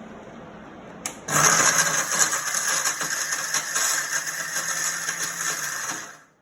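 Electric mixer grinder (mixie) grinding dry whole spices to powder: a click about a second in, then the motor runs loud and steady for about five seconds and winds down near the end.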